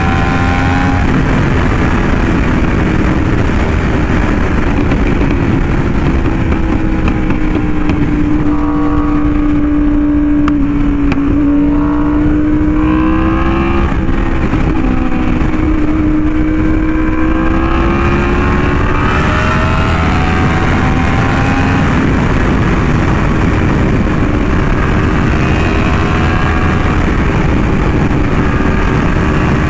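Yamaha R1M's crossplane inline-four engine, breathing through an SC Project exhaust, running at high revs at road speed, under a steady rush of wind. Its pitch sags and climbs gently several times as the throttle eases and opens again.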